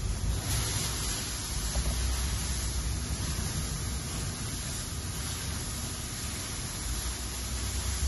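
Steady hiss with a low rumble underneath, brightening about half a second in: constant background noise.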